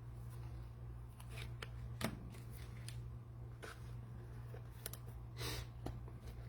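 Trading cards and plastic pack wrappers being handled: scattered sharp clicks and light rustles, a louder click about two seconds in and a longer rustle about five and a half seconds in, over a steady low hum.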